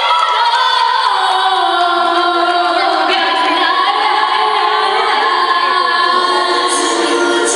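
Woman singing into a handheld microphone, amplified through a stage loudspeaker, in long held notes that slide from one pitch to the next.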